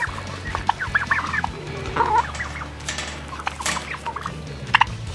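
Young turkeys and hens calling in short chirps and clucks while they are hand-fed, with a few sharp clicks in the second half.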